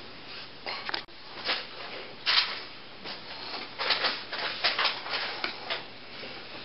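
Scattered short rustling and scraping sounds, more frequent in the second half, as of cardboard props and puppets being handled.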